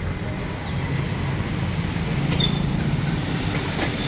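Steady rumble of road traffic going past, growing a little louder in the middle, with a couple of light clicks near the end.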